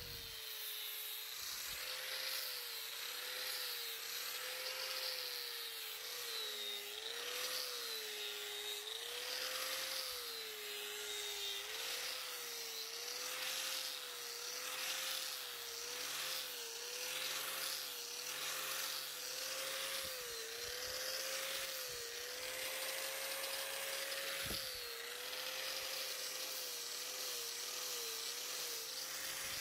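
Electric angle grinder with a sanding disc sanding a hardwood axe handle. The motor's whine keeps dipping and recovering as the disc is pressed into the wood, over a steady hiss of abrasion.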